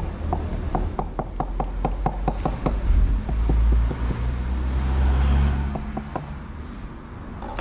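A cat crunching dry kibble: a quick run of sharp crunches, about five a second, for the first couple of seconds. A loud low rumble with a faint steady hum follows in the middle.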